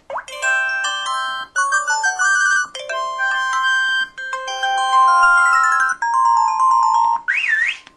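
LG-KV5100 phone's built-in sound effects played one after another through its small speaker: a run of short electronic chime melodies with no bass, each lasting a second or two. Near the end comes a quick rising-and-falling glide.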